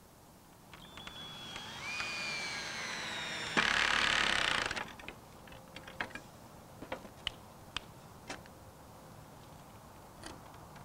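Cordless drill driving a screw through a metal connector into wood: a motor whine that rises in pitch, then a louder, harsher burst for about a second as the screw goes in. After it come scattered light clicks and taps of the parts being handled.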